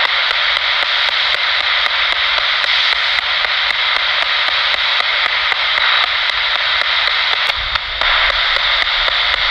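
Spirit box radio scanning through stations: a steady, loud hiss of radio static broken by regular clicks, about four or five a second, as it jumps from frequency to frequency.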